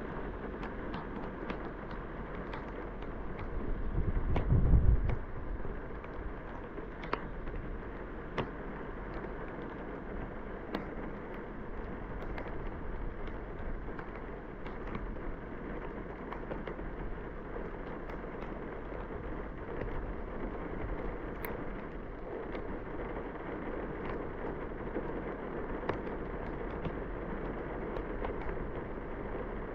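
Steady noise of a car driving through heavy rain, with scattered sharp ticks throughout. A low rumble swells about four seconds in and is the loudest moment.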